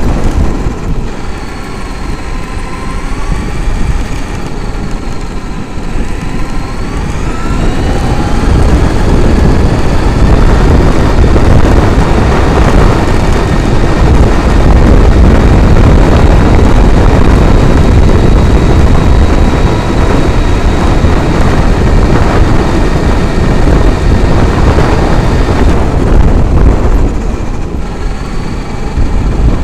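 Traxxas X-Maxx RC monster truck's brushless electric motor and gears whining, the pitch rising and falling with the throttle, over a heavy rumble of tyres on gravel and wind buffeting the onboard microphone. Through the middle the rumble is louder and the whine holds one steady high pitch, then rises and falls again near the end.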